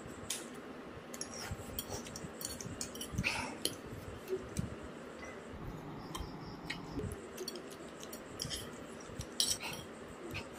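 Metal fork and spoon clinking and scraping on a plate of instant noodles in scattered short clicks, with slurping and chewing as the noodles are eaten.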